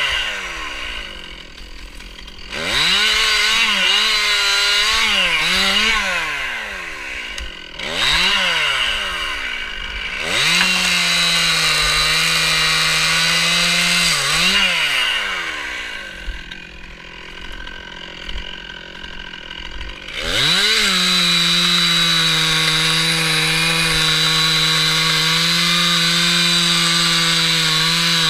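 Stihl MS 261 two-stroke chainsaw cutting wood, revved up and let back to idle several times. The revs waver under load in the first few seconds, then hold steady in two long full-throttle runs in the second half, each ending with the engine dropping back to idle.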